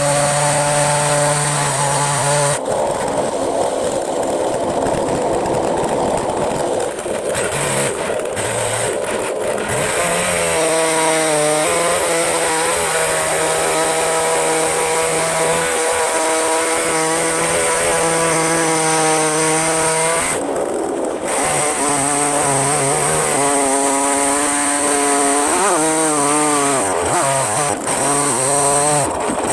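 Proyama gas chainsaw on an Alaskan chainsaw mill running hard while ripping a pine log lengthwise. The engine note keeps sagging and rising as the load on the chain changes.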